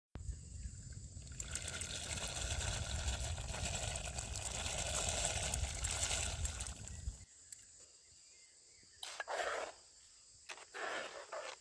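Water boiling in a large aluminium pot as dry rice is poured in, under a low rumble. The sound drops off suddenly about seven seconds in, and a ladle then stirs the pot in two short sloshes.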